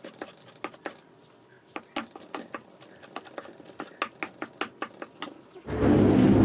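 Quick, irregular light taps of a utensil working food, a few per second. A loud rushing noise starts near the end.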